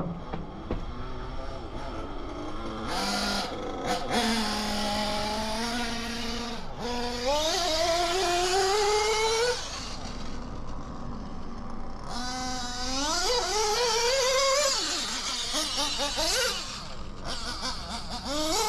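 Small HOBBYTECH B213 nitro engine in an RC buggy running on the track, with high-pitched rising pulls on the throttle about four seconds in and again about twelve seconds in, and steadier lower running in between.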